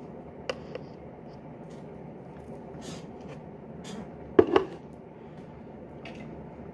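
Handling noise close to the microphone: two light clicks about half a second in, a few faint ticks, and a sharp double knock about four and a half seconds in, over quiet room tone.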